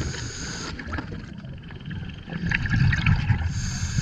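Scuba diver breathing underwater through a regulator: a hiss of inhaled air near the start and again near the end, with exhaled bubbles gurgling in between.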